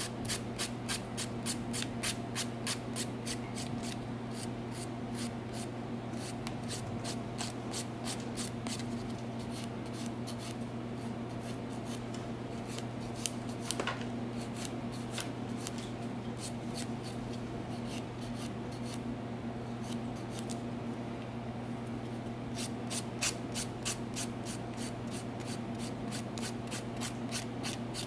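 A hand nail file rasping back and forth across a fingernail in quick strokes, about three a second, filing off softened gel polish after a soak-off. A steady low hum runs underneath.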